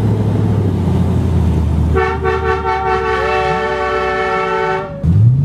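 Car engine running at low speed, then a long car-horn blast of about three seconds that starts about two seconds in. The horn sounds as a chord of several notes, a higher note joins partway through, and it cuts off abruptly.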